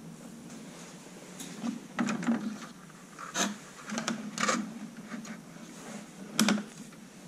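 Plastic model-kit sprues and a built plastic tank model being handled and moved against each other: scattered light plastic clicks and rustles, with a louder click near the end.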